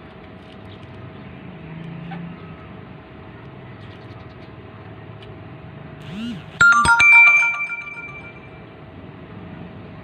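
A short, bright chime sounds once, about six and a half seconds in, several ringing tones that fade out over about two seconds, over a steady faint hum.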